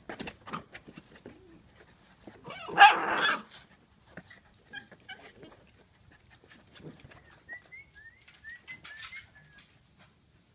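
Puppies playing, with one short bark about three seconds in and scattered faint scuffles and clicks. A few faint high chirps come near the end.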